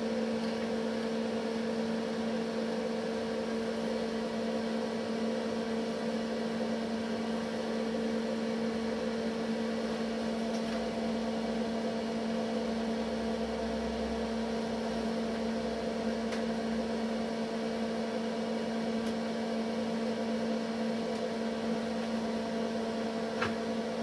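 Steady electrical mains hum from the dimmer-and-variac lamp test rig, two strong even tones with fainter ones above.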